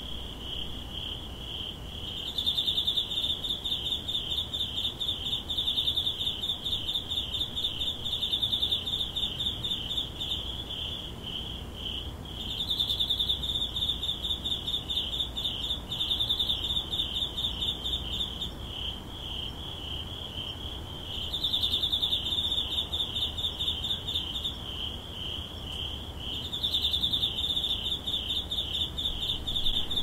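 Autumn insects singing in a continuous high, rapidly pulsing trill. The chorus swells louder for stretches of several seconds and eases back between.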